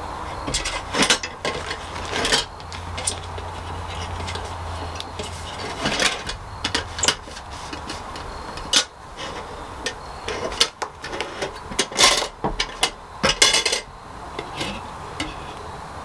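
Stainless steel milking-machine bucket clinking and knocking as its lid, fittings and hoses are handled, with the lid lifted off near the end. A low steady hum runs underneath and stops about seven seconds in.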